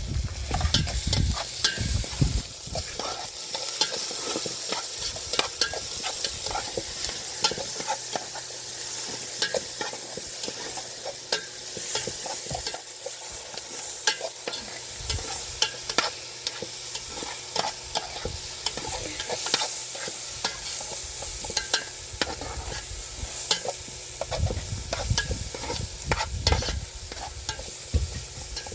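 Food sizzling as it fries in a pan, with a utensil stirring it and clicking against the pan many times.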